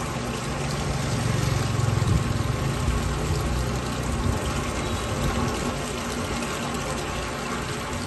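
Murky wastewater gushing out of a cleared drain pipe and splashing down steadily as the blockage gives way. A low motor hum runs underneath, strongest in the first few seconds.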